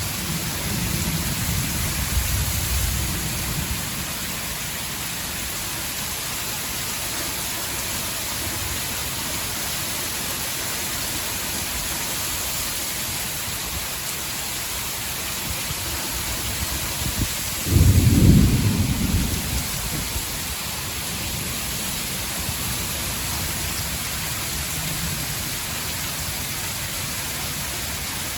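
Heavy rain pouring steadily in a thunderstorm, with a low rumble of thunder in the first few seconds and a sudden thunderclap about 18 seconds in that rumbles away over a second or two.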